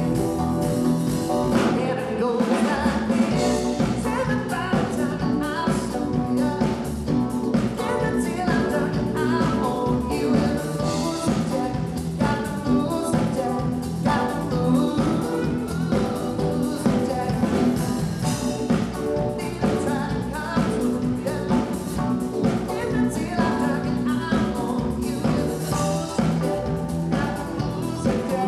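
Live band playing amplified music with drums, saxophone and singing.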